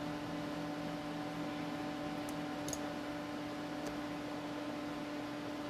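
Computer cooling fan running: a steady hum with a hiss, with a few faint ticks in the middle.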